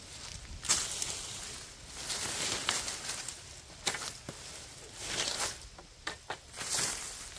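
Irregular rustling swells, one every second or so, with a few sharp knocks or snaps among them.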